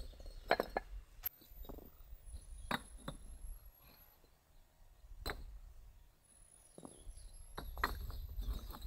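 Red clay bricks clinking and knocking against one another as they are picked up and set down by hand on a stack. About ten sharp clacks at uneven intervals, with a quieter gap midway.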